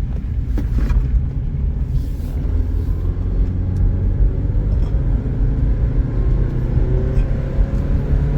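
Inside the cabin of a moving 1999 Subaru Outback: its 2.5-litre flat-four engine and road noise as a steady low rumble, with the engine note rising gently in the second half.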